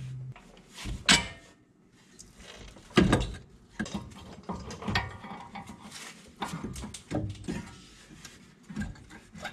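Irregular metal clanks and knocks, the loudest about a second in and about three seconds in, as the steering knuckle, hub and brake rotor are shifted by hand to line the new CV axle up with the hub bearing.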